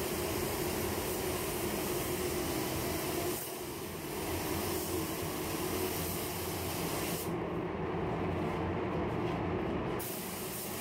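Compressed-air gravity-feed spray gun hissing as it lays down single-stage yellow paint, over the steady hum of the paint booth's air flow. The hiss stops for a few seconds about seven seconds in, then resumes.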